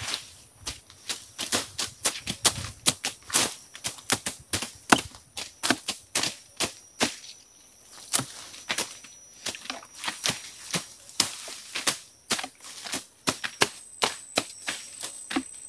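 A long run of irregular sharp taps and clicks, several a second, over a steady high hiss.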